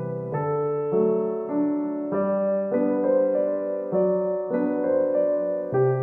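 Background solo piano music, a new note or chord struck about every half second.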